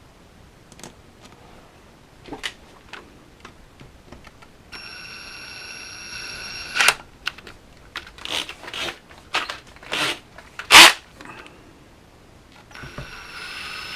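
Small hand tools and metal parts being handled on a workbench: scattered clicks and taps, one sharp click standing out about three-quarters of the way through, and a steady high whine twice, the first lasting about two seconds.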